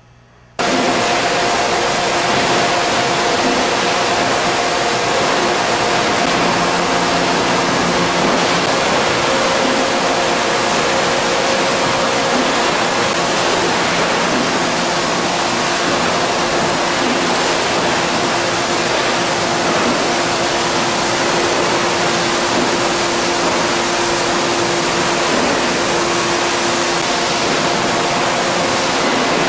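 Steady loud rushing noise of a factory floor, with faint steady hums that come and go. It starts abruptly about half a second in.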